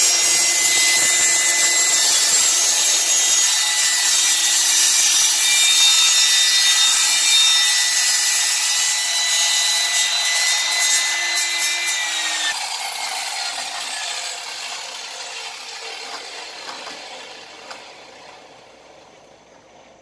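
Table saw running and cutting slots into a plastic sheet, with a steady high whine. About twelve seconds in it is switched off and winds down, fading away over several seconds.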